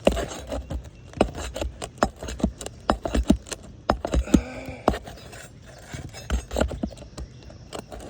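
A hand tool working roofing nails out of asphalt shingles: irregular sharp clicks and knocks of metal against the nails and shingles, with some scraping.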